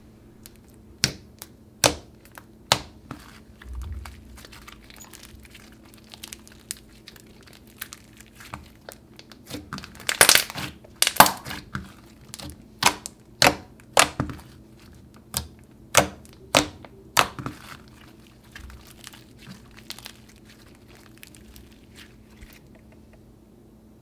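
Thick, glossy slime with foam beads being squeezed and stretched by hand, giving sharp clicking pops and crackles. A dense crackle comes about ten seconds in, then single pops roughly every half second until about seventeen seconds, and they grow faint after that.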